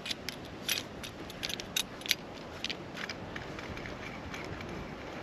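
Light, irregular metallic clicks and rattles from a hand-turned flaring tool on copper tubing, as its handle is worked and the tool loosened, thinning out after about three seconds. A faint steady hiss lies under them.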